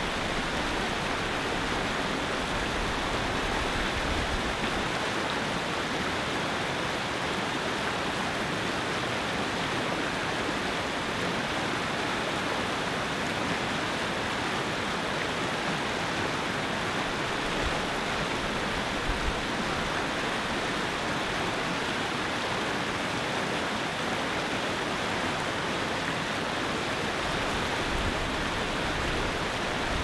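Whitewater river rapids rushing over rocks, a steady, unbroken rush of water.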